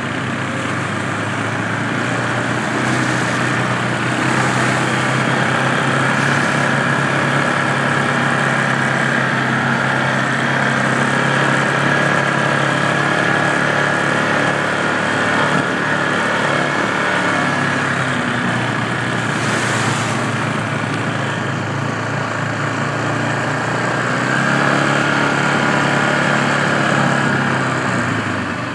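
ATV engine running steadily while riding a dirt trail, its pitch shifting a little as the throttle changes.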